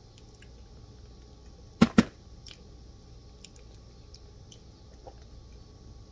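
Two sharp clicks in quick succession about two seconds in, with fainter scattered ticks, as a metal spoon scoops and scrapes the flesh of a ripe bitter melon (ampalaya) during eating.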